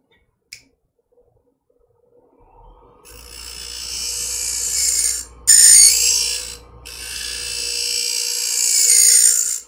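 Twice as Sharp scissor sharpener running with a steady motor hum while a medical shear's blade, clamped in its carrier, grinds against the coarse wheel. The hissing grind starts about two and a half seconds in, builds, and breaks off briefly twice as the blade lifts off the wheel. It is taking heavy damage off the blade edge.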